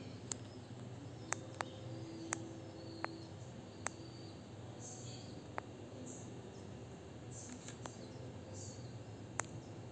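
Outdoor background ambience: a steady low hum with about nine sharp, isolated clicks scattered through it and a few faint high hissy sounds in the second half.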